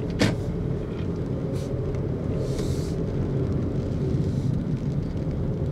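Car engine and tyre noise heard from inside the cabin while driving slowly: a steady low hum, with a short click about a quarter second in and a brief hiss a little before the middle.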